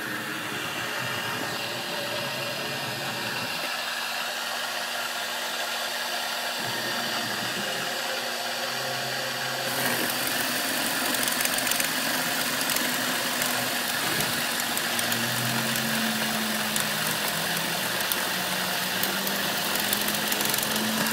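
CNC-converted Grizzly G0704 benchtop mill running its spindle while a quarter-inch end mill cuts a circular profile through a white sheet, the axes driven by stepper motors. A steady machine whir, a little louder from about halfway.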